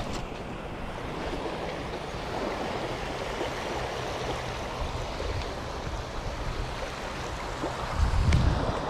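Small waves breaking and washing up a shingle beach in a steady rush, with a brief low rumble near the end.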